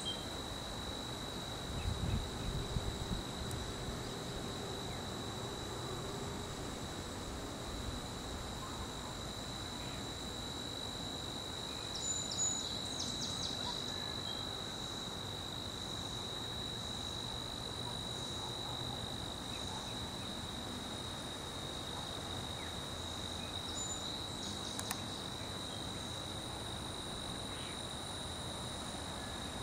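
Insects trilling in one steady, unbroken high note, with soft low bumps and rumbles about two seconds in and again about twelve seconds in.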